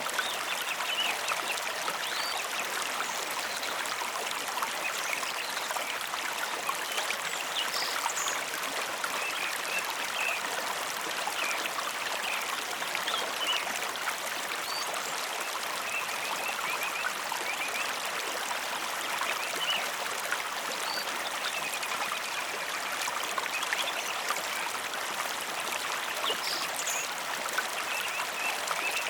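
Mountain river or stream flowing: a steady, even rushing of water, with a few faint, short high chirps scattered through it.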